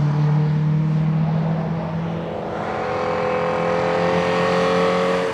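Historic saloon race car engine running at high revs on the circuit, a steady engine note. A little over two seconds in the note changes to a higher one that climbs slowly in pitch as the car accelerates.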